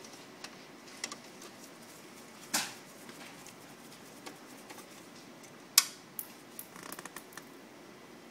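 Scattered sharp clicks and light knocks of plastic and metal parts being handled inside a colour copier's drum section during disassembly, with one loud click a little past halfway and a quick run of small ticks after it.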